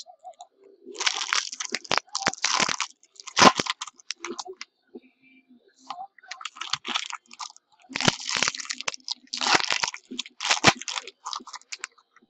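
Crinkling and tearing of plastic and foil trading-card packaging, in irregular rustling bursts with sharp clicks and snaps.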